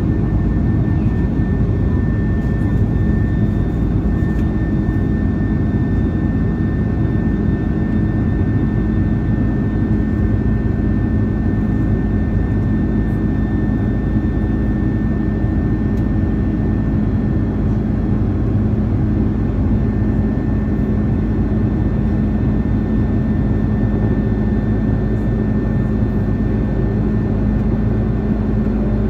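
Steady jet engine and airflow noise inside an airliner cabin: a constant low rush with a faint steady hum and a faint high whine.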